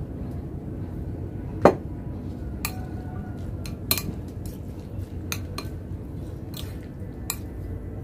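A metal spoon clinking against a ceramic bowl while food is stirred: a handful of sharp, irregular clinks, some ringing briefly, with one louder knock just under two seconds in. A steady low rumble runs underneath.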